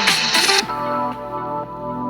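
A Samsung Galaxy S23 Ultra ringtone playing: a melodic electronic tune with a steady beat that breaks off about half a second in, leaving held notes ringing and fading.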